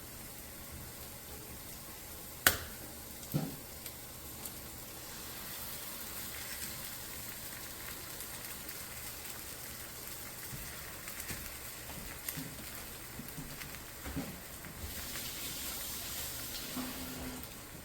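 Eggs sizzling in a hot frying pan, a steady hiss that grows stronger near the end. A single sharp click comes about two and a half seconds in, followed by a few lighter knocks.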